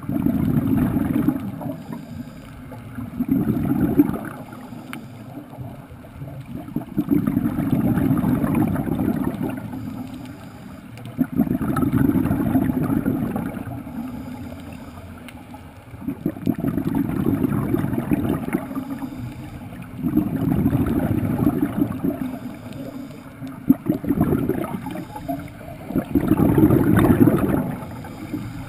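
Scuba regulator exhaust bubbles heard underwater: a diver breathing out in bursts of a second or two that recur about every four seconds, with quieter spells between breaths.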